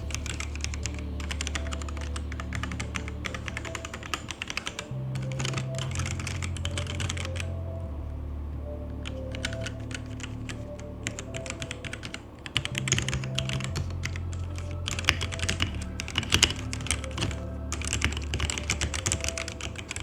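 Typing on a Redragon UCAL K673 PRO gasket-mounted 75% mechanical keyboard with linear red switches and PBT keycaps: fast runs of key clacks broken by brief pauses.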